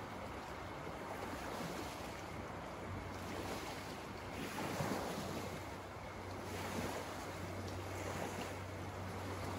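Wind-driven small waves lapping and splashing against a lake shore, with wind gusting, a steady wash that swells and eases every second or two.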